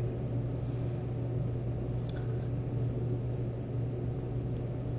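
Steady low background hum of the room, with a faint click about two seconds in.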